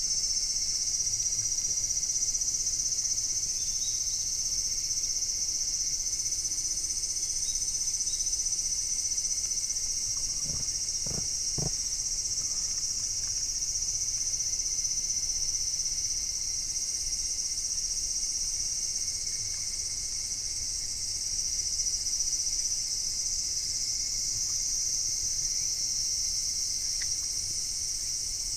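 A steady, high-pitched chorus of insects, with three short dull knocks about eleven seconds in.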